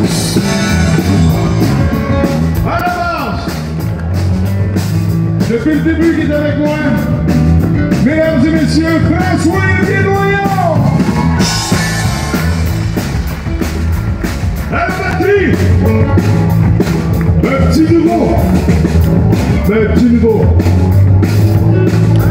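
Live band playing a rock-and-roll number: a lead vocal over a steady drum-kit beat and electric bass guitar.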